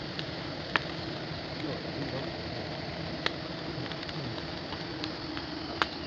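Steady buzzing drone of a dense mass of honey bees swarming over their comb and the rocks, with three short sharp clicks: about a second in, midway, and near the end.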